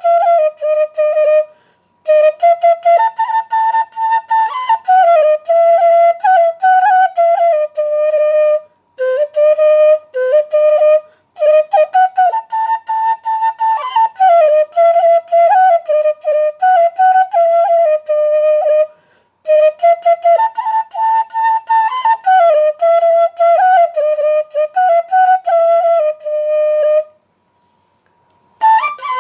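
A flute playing a lively solo melody of quick, ornamented notes in phrases, with short breaks between them. A faint steady high tone runs underneath.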